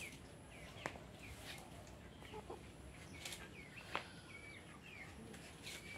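Free-range hens calling faintly while foraging, in short high chirping calls, with a few sharp clicks.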